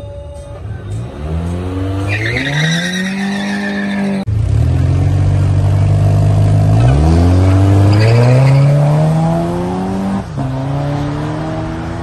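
A Volkswagen Bora revving up and holding its revs with tyres squealing at the drag strip start. After a cut, the Bora and a Ford Lobo hybrid pickup launch side by side, their engines climbing in pitch through the gears, with a brief drop at a gear change about ten seconds in.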